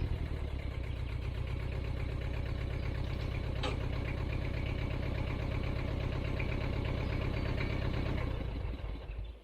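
Tractor engine idling steadily, then shut off near the end, dying away over about a second.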